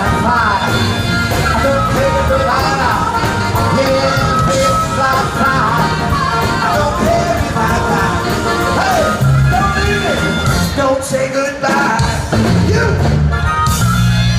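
A live blues band plays with a lead vocalist singing and shouting over guitar, drums and keyboard. The band drops out for about a second roughly eleven seconds in, then comes back in.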